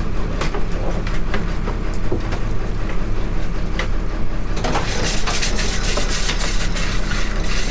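Boat engine running steadily under a clatter of knocks and clicks as a wire crab pot is hauled aboard and the catch is handled. About four and a half seconds in, a louder steady hiss joins in.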